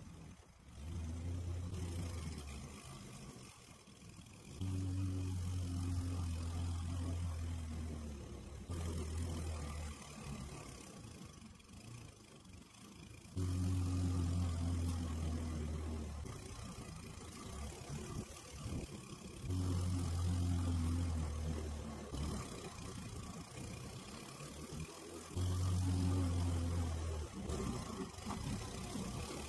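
Walk-behind gas lawn mower engine running as it is pushed through tall, overgrown grass, getting louder and softer by turns every few seconds.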